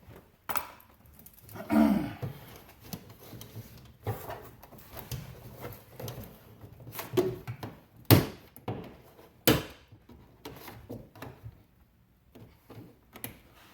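Plastic rear door trim panel of a Chevrolet Caprice PPV being pried off: a string of uneven knocks, clicks and creaks as the panel and its push-in retaining clips are worked loose, with the sharpest knocks about eight and nine and a half seconds in.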